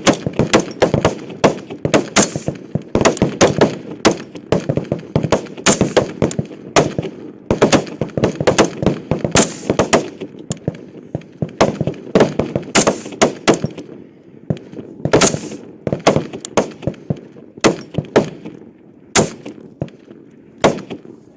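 Rifles on a high-power match firing line shooting a prone rapid-fire string, many shooters firing at once. Dozens of sharp shots overlap in an irregular patter that thins out over the last few seconds.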